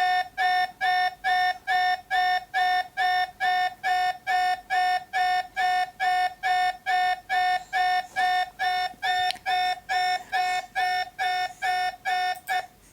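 Electronic alarm tone of a homemade Emergency Alert System alert: a steady mid-pitched, buzzy beep repeating evenly a little over twice a second, cutting off abruptly near the end.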